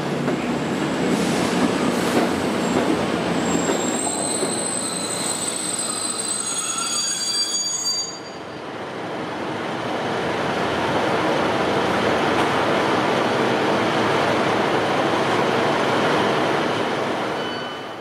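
A passenger train running along the platform, with a high-pitched wheel squeal of a few seconds midway through its passage. After a cut, a second train approaches the platform and its running noise builds into a steady rush, dropping away just before the end.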